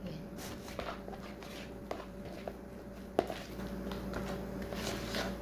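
Metal spoon stirring a banana-and-egg batter in a plastic bowl: soft scraping with scattered light clicks of the spoon against the bowl, and one sharper knock a little after three seconds in.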